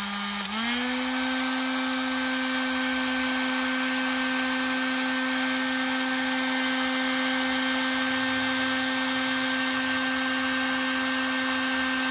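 Electric heat gun running steadily, its fan motor humming under a rush of air as it shrinks heat-shrink tubing over a wire terminal. The hum steps up a little in pitch about half a second in, then holds steady.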